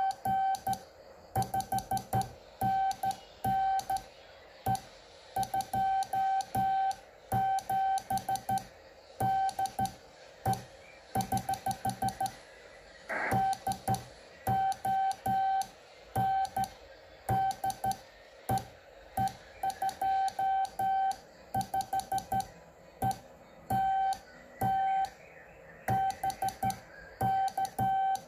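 Morse code (CW) sidetone from a Kenwood TM-255 2-metre all-mode transceiver as it transmits: a steady mid-pitched beep keyed in dots and dashes, with sharp clicks at the elements.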